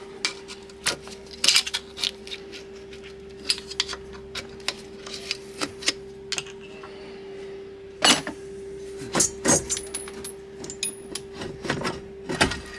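Metal hand tool clinking and knocking against the engine while the last fastener under a marine diesel's turbo is worked loose: irregular sharp metallic clicks, the loudest about a second and a half in and again about eight seconds in. A steady faint tone hums underneath.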